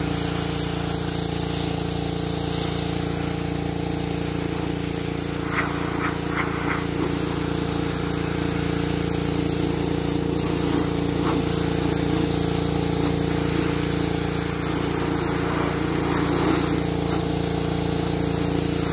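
Pressure washer running steadily with a low pump hum, its jet hissing against a plastic truck door panel to strip the loose surface plastic.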